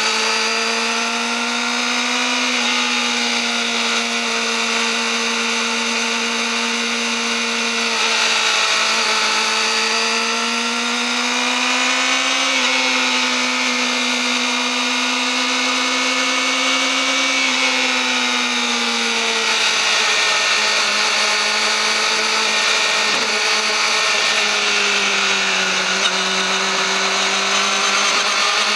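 Yamaha YZF-R6 inline-four engine through its stock exhaust, held at a steady high rpm with a high-pitched whine, drifting slowly up and down in pitch a few times.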